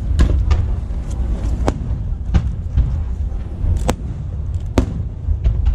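Fireworks bursting overhead: about ten sharp bangs at irregular intervals, some closely paired, over a steady low rumble.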